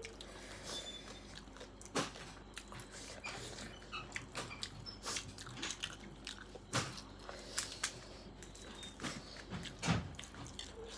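Close-miked chewing and biting of food: irregular crunches and mouth clicks, a few louder ones spread through.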